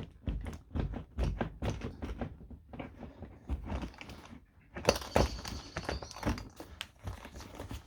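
Irregular knocks, clicks and rattles of a Mk1 Audi TT seat headrest, stiff in its mountings, being wiggled up and down and side to side to work it free of the seat, with a busier run of knocks about five seconds in.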